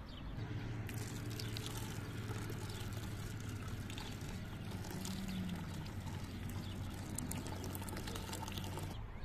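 Water poured in a steady stream from a kettle into a large aluminium pot of red broth, splashing into the liquid. It starts about a second in and stops abruptly near the end.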